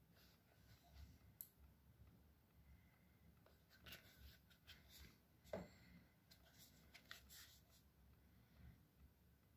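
Near silence with faint handling noises from a hand-held massage gun being turned over: a few light clicks and rubs, and one short falling scrape about halfway through. The massager's motor is not running.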